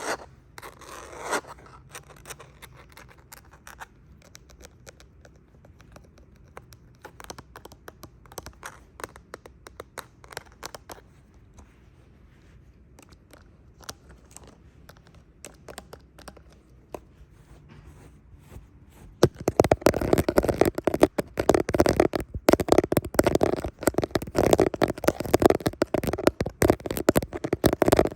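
Fingernails scratching and tapping on hard plastic close to the microphone. Light, sparse scratches and taps for most of the time, then, about two-thirds of the way through, much louder and denser rapid scratching.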